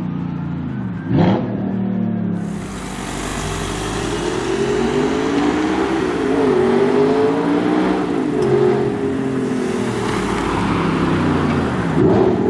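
Audi R8's 4.2 V8 through an Armytrix valved exhaust, driving toward the camera with its note rising and falling as the throttle comes on and off. About a second in, a car passes close by with a quick rising-then-falling whoosh.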